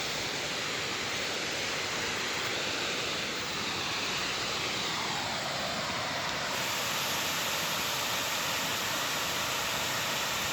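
Water pouring over a 35-foot dam: a steady rushing.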